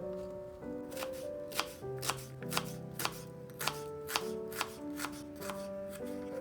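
A knife chopping on a cutting board: a string of sharp knocks, about two a second, from about a second in, over background music.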